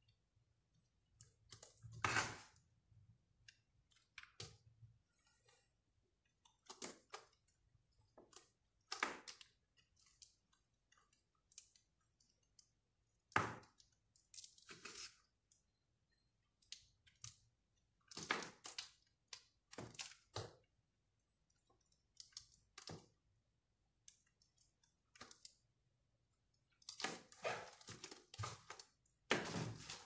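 Knife cutting through a bar of crumbly green soap: crisp cracks and snaps as pieces break off and drop, irregular and a second or two apart. The loudest comes a couple of seconds in and another about halfway through, and the crackling grows denser near the end.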